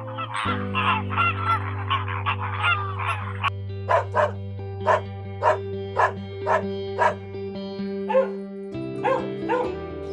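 Animal calls over soft background music: a dense chorus of overlapping calls for about three seconds, then a run of sharp, evenly spaced calls about two a second.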